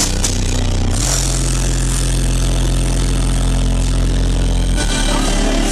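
Car audio subwoofers playing loud bass. A steady low note is held from about a second in and changes to a different note near the end.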